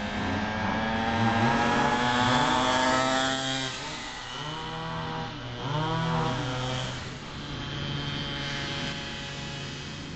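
Small 50 cc two-stroke scooter engine, fitted with a big-bore race kit and 19 mm racing carburettor, running at high revs as the bike passes. The engine note rises and falls, loudest about two seconds in and again around six seconds in.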